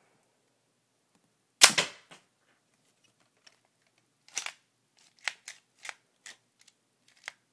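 A rubber-band-powered Lego bolt-action gun fires once, about one and a half seconds in: a loud, sharp snap with a second knock right after it. A series of lighter plastic clicks follows as the gun is handled.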